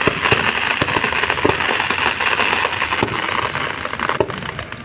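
Fireworks display: a dense, continuous crackle of bursting fireworks with scattered sharper pops, easing off a little near the end.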